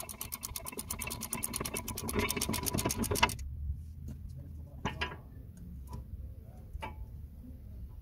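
Hand socket ratchet clicking rapidly, about nine clicks a second, as it runs out the upper brake caliper bolt; it stops suddenly about three seconds in. A few separate metal knocks follow as the freed caliper is handled.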